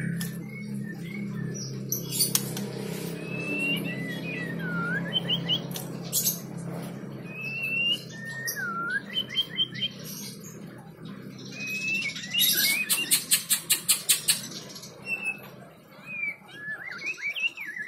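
White-rumped shama singing: clear whistled phrases that swoop up and dip down, broken by a fast dry rattle of clicks about two-thirds of the way through. A low steady hum runs underneath.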